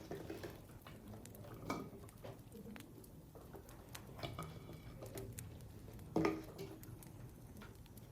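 Faint, scattered light taps and clicks of small objects being handled, with two louder knocks, the first about two seconds in and the louder one about six seconds in.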